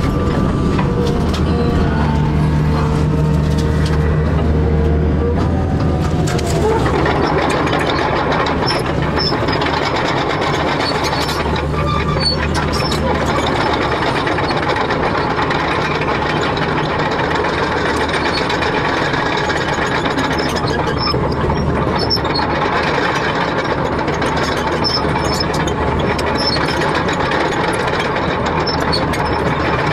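Excavator's heavy engine running steadily, turning rougher and noisier about seven seconds in, with faint squeaks and clicks over it.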